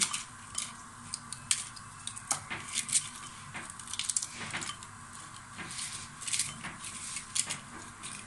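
Crisp deep-fried papdi (maida and ghee crackers) being snapped and crumbled by hand over a glass bowl: irregular sharp cracks and crunches, a few a second, with pieces clicking into the bowl.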